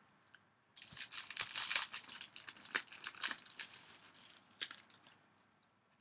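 Crinkling and rustling as a sheet of stick-on rhinestone bling is handled. It starts under a second in and thins to a few scattered crackles after about three seconds.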